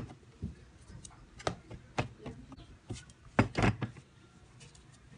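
Irregular knocks and soft thuds against a plastic tray as dough is handled and divided into balls, the loudest a close pair a little over three seconds in.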